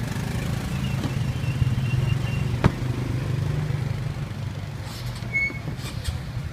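Steady low hum of an idling engine, with a single sharp knock a little under three seconds in.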